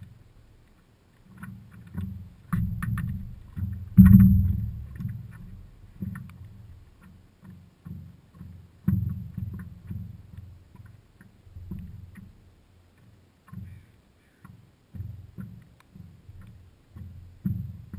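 Water slapping against the hull of a stand-up paddleboard as it moves over small ripples: irregular dull thuds, heard close through a camera mounted on the board, the loudest about four seconds in, with a few light knocks.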